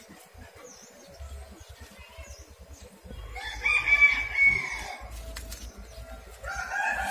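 A rooster crowing twice: one long crow a few seconds in, and a second crow starting near the end.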